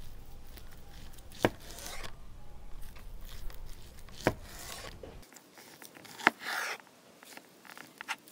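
Food preparation on a cutting board: three sharp knocks spaced a couple of seconds apart, each followed by a short scrape, then a few light clicks near the end.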